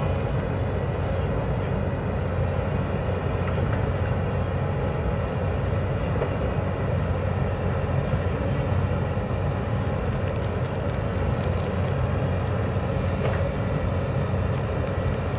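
Hyundai crawler excavator's diesel engine running steadily while the boom and bucket dig into the earth slope. There are a few faint knocks.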